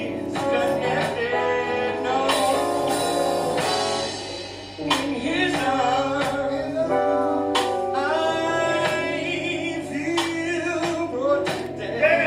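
Gospel song: a man singing over instrumental accompaniment with recurring percussion strikes.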